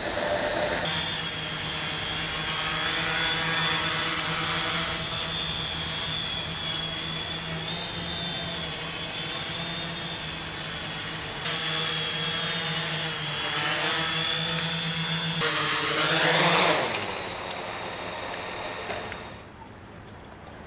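Sky Rider quadcopter's four electric motors and propellers humming steadily in flight, with a steady high whine over the hum. The pitch shifts briefly as it comes down, and the motors cut off suddenly near the end.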